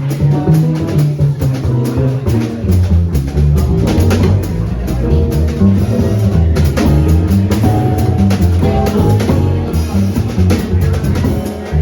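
Jazz quartet playing live: drum kit with busy cymbal and snare hits over a moving bass line, with other pitched instrument notes above.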